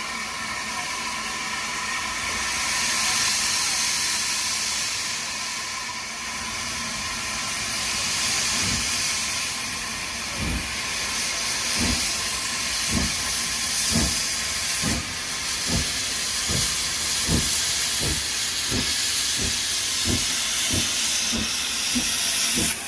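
WD 152, a Hunslet Austerity 0-6-0 saddle-tank steam locomotive, starting a train: a steady hiss of steam, then from about a third of the way in exhaust chuffs that begin slow and quicken steadily as it gathers speed. Steam jets from the open cylinder drain cocks hiss with each beat.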